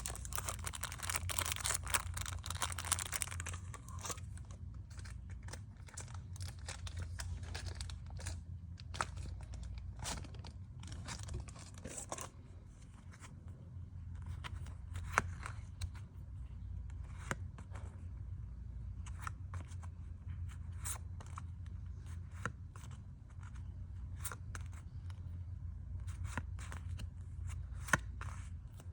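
Photocard packing materials being handled: a few seconds of continuous crinkling and tearing at the start, then scattered light taps and clicks as items are handled and packed.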